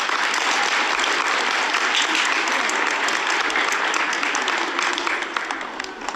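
Audience of schoolchildren clapping for about six seconds, fading out near the end.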